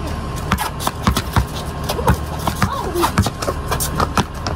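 Basketball bouncing on a concrete driveway during play, irregular knocks several times a second mixed with sneaker footsteps and scuffs, over a steady low hum.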